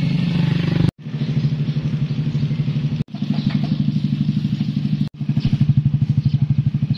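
Motorcycle engines idling: a steady, fast, even putter, broken by three short silent gaps about one, three and five seconds in.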